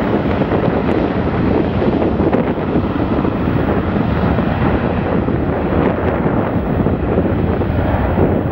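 Airbus A320-200's IAE V2527-A5 turbofan engines running at takeoff power, a steady noisy roar, mixed with heavy wind buffeting on the microphone.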